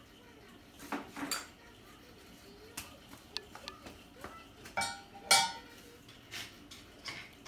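Scattered light metallic clinks and taps from a flashlight and hands handling a bare ported cylinder head. The loudest is a ringing clink about five seconds in.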